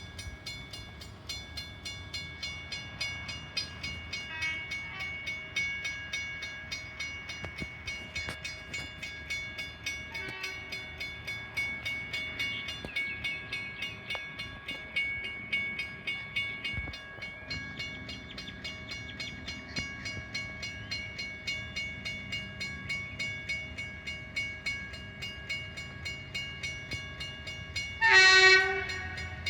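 Level crossing warning bells ringing steadily in rapid, even strokes. About 28 seconds in, a train horn sounds a short blast from an approaching Oscar H-set electric train.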